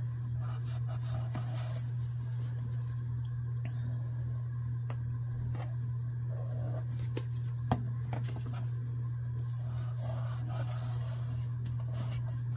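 Paper being handled, folded and pressed flat by hand, with faint rustling and a few light clicks and taps, one sharper tap about two thirds of the way in, over a steady low hum.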